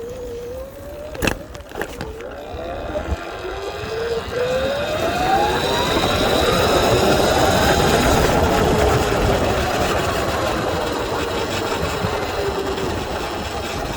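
Sur-Ron electric dirt bike's noisy mid-drive motor under acceleration: its whine rises in pitch over a few seconds as a rush of wind and drive noise builds and stays loud. A couple of sharp knocks about a second in.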